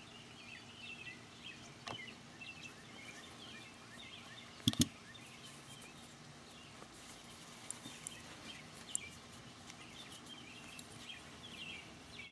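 Faint birdsong of small chirps throughout, with a sharp double click about five seconds in and a few lighter clicks and ticks from the carbine bolt and tools being handled.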